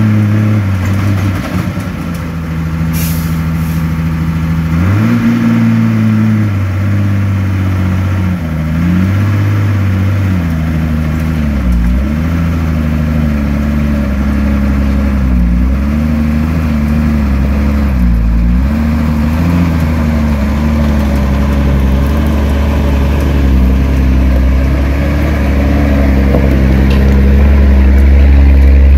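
Mercedes-Benz dump truck's diesel engine labouring uphill on a steep loose-stone track under a load of building material, its revs repeatedly sagging and picking up again. A brief hiss about three seconds in, and the engine grows louder as the truck comes close near the end.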